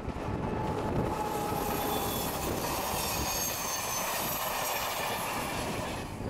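Diesel-hauled passenger train passing close by: the diesel locomotive goes past, then the Corail coaches with their wheels clattering on the rails. From about a second and a half in, the wheels squeal in several high-pitched tones.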